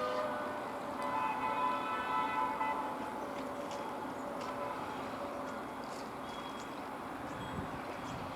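Horn of a WAP-5 electric locomotive: a short blast right at the start and a longer, louder blast from about one to three seconds in, heard from some way off. Fainter horn tones and the steady running noise of the train follow.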